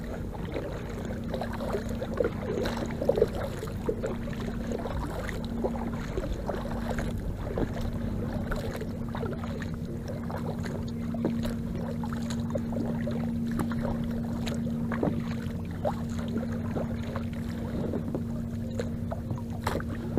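Paddle strokes and splashes as an inflatable fishing packraft is paddled, with scattered small ticks and drips over a steady low hum.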